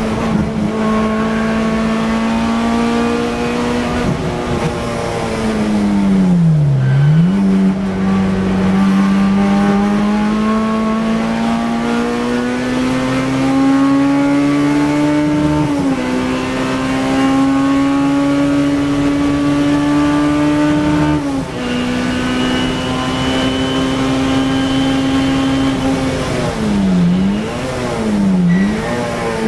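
Honda Civic EK9 race car's four-cylinder engine heard from inside the car, running hard at high revs with the pitch climbing slowly. The pitch drops a little about 16 and 21 seconds in. It dips sharply and comes back up about 7 seconds in, and twice more near the end.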